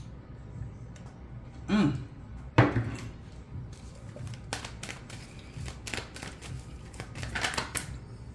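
Cards being handled on a table: a brief vocal murmur about two seconds in, a sharp knock just after, then a run of quick light clicks and taps from about halfway through.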